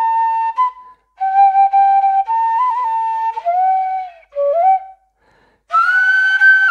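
Larger Chinese bamboo dizi flute played solo: a slow melody of held notes with small ornamental turns. The melody breaks off for breaths about a second in and again near five seconds in, then rises to a long high held note.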